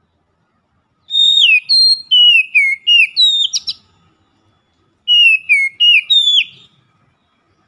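Oriental magpie-robin singing: two loud phrases of clear whistled notes, most of them sliding down in pitch, the first starting about a second in and lasting nearly three seconds, the second shorter one a little past halfway.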